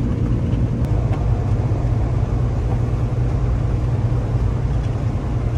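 Semi-truck's diesel engine and road noise heard from inside the cab while driving: a steady low drone.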